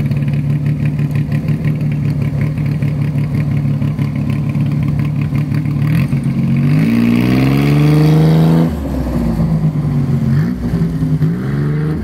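Cobra-style roadster's engine idling steadily through its side exhaust, then revving hard about six seconds in, the pitch climbing for a couple of seconds before dropping off sharply. Shorter rising revs follow as the car pulls away.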